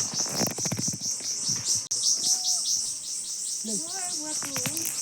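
Insects chirring in a steady, high-pitched pulse of about four to five beats a second, with a few short pitched calls about four seconds in.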